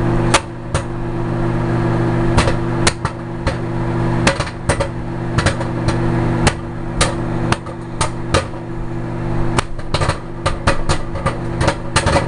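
Popcorn kernels popping inside a paper lunch bag in a running microwave oven: sharp, irregular pops, a few a second, over the oven's steady hum.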